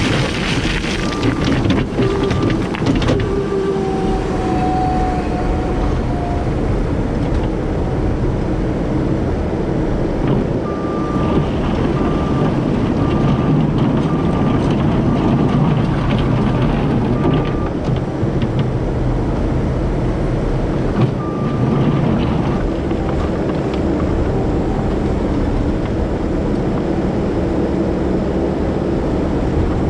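Heavy diesel equipment running steadily under load, with a reversing alarm beeping in short spells.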